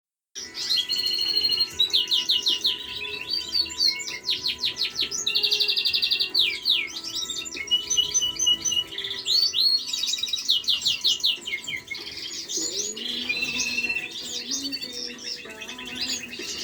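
Caged canaries singing: long runs of rapid trills and rolling, repeated notes from several birds overlapping.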